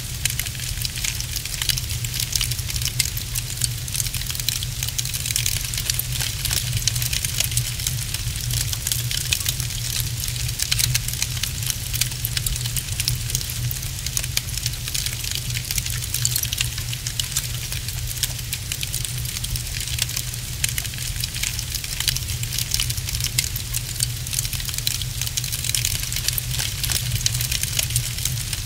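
Wood log fire in a fireplace crackling continuously, a dense run of small irregular pops and snaps over a steady low rumble.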